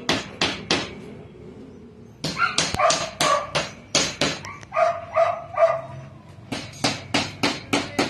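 A dog barking in quick runs of sharp barks, about three to four a second, in three bouts.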